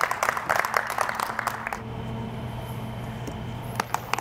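Applause from a small audience that dies away about two seconds in, leaving a low steady hum and a couple of sharp knocks near the end.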